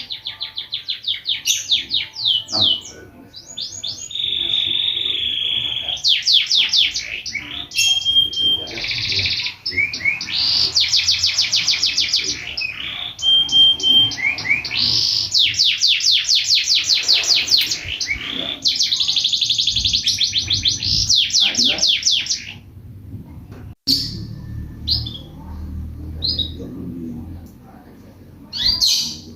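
Pet lovebird chirping loudly in long, rapid trains of high chirps, with a held buzzy call among them. After about twenty seconds the chirping thins to a few scattered short calls, and a single sharp click sounds shortly after.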